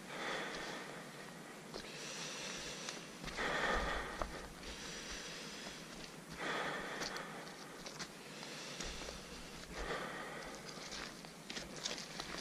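A trail runner's heavy breathing, a loud exhale about every three seconds, over quick footsteps on a leaf-covered, lightly snowy dirt trail.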